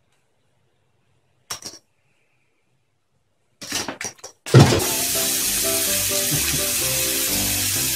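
Near silence broken by a few short clicks. Then, from about halfway, music plays over the steady rush of a bathroom tap running into a sink.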